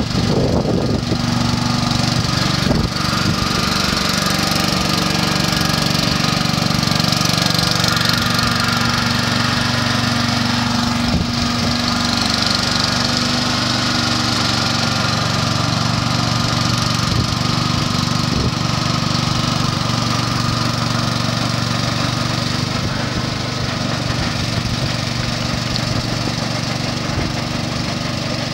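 Small engine running steadily while a pontoon boat's homemade paddle wheels churn and splash the water, fading slightly toward the end as the boat moves away.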